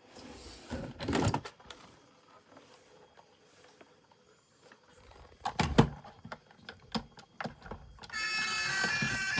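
A scattered series of sharp knocks and clicks, a cluster about a second in and more from about five and a half seconds. Background music with a bright melody starts about eight seconds in.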